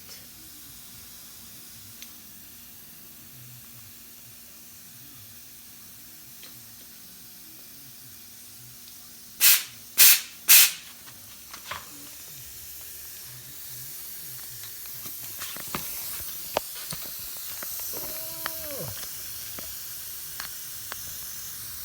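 Compressed air hissing from a shop air hose and chuck, with three short, loud blasts about halfway through, then a higher hiss that grows louder with scattered clicks.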